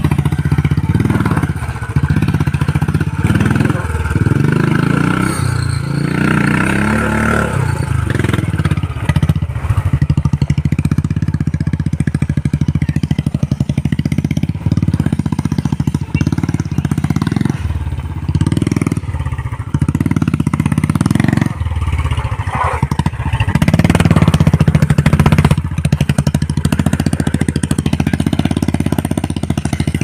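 Motorcycle engine running under load as it climbs a rough, rocky dirt track. The throttle is opened and eased off again and again, so the engine note surges and drops in bursts. It is loudest a little past the middle.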